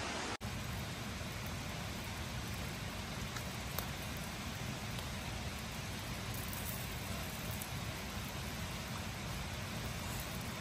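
Steady rush of a spring's flowing water, with a few faint ticks; the sound drops out for an instant just after the start.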